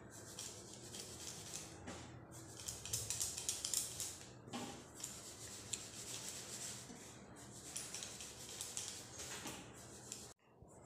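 Hands rubbing a dry flour mix with solid ghee in a steel plate, a soft gritty rustle with light clinks of glass bangles, the rubbing-in stage before the dough is made. The sound cuts off suddenly near the end.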